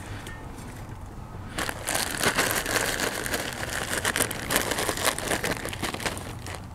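A plastic bag of wood chips crinkling and rustling as a hand rummages in it, starting about a second and a half in.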